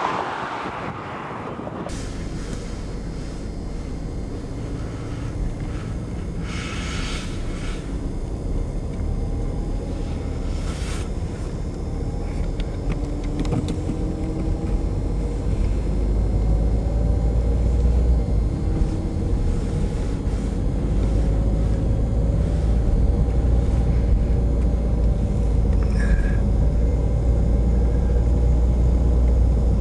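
Car driving at low speed, a steady low road-and-engine rumble heard from inside the cabin that slowly grows louder.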